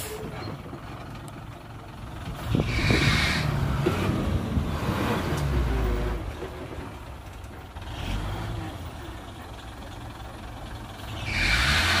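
Heavy diesel machinery working, a dump truck and bulldozer, with a steady low engine rumble. Two louder noisy bursts come in, about three seconds in and again near the end.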